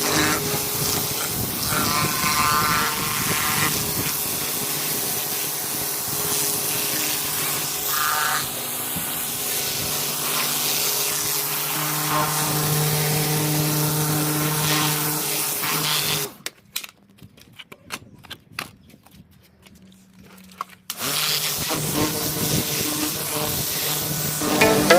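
Electric pressure washer running, its motor humming under the hiss of the water jet on paving slabs. It cuts out for a few seconds about two-thirds of the way through, then starts again.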